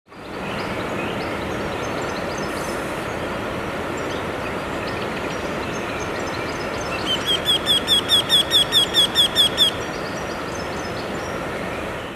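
Eurasian wryneck singing: a run of about a dozen quick, evenly repeated notes, each sliding slightly upward, starting about seven seconds in, over steady background noise.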